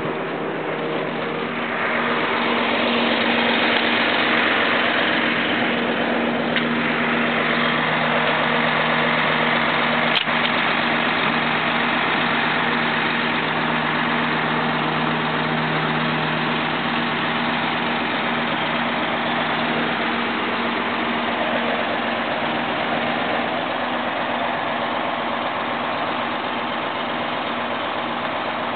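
Truck-mounted crane's engine running steadily at idle while it holds a boat up in lifting slings. A single sharp click about ten seconds in.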